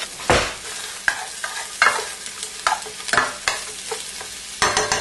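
Chopped red onions hitting hot olive oil in a frying pan and sizzling, with a spatula scraping and knocking against the pan several times as they are stirred.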